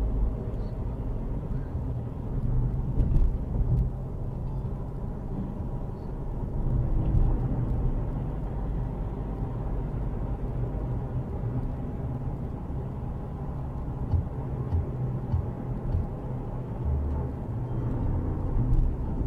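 Steady low rumble of a car driving at highway speed: tyre, road and engine noise heard from inside the cabin.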